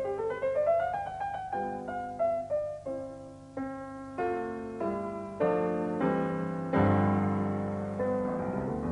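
Piano music: a quick rising run of notes, then a series of struck chords, with a louder low chord near the end.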